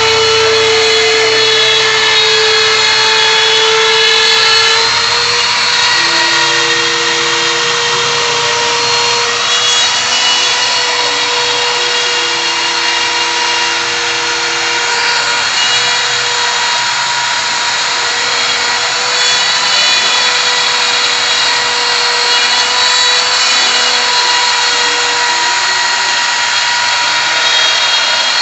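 DeWalt router spindle on a CNC router running at full speed with a steady high whine, its bit engraving a groove into MDF board. A lower tone joins for a couple of seconds twice, about six seconds in and again around twelve seconds in.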